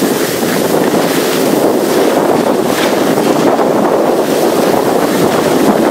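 Steady wind noise buffeting the microphone of a camera carried by a moving skier.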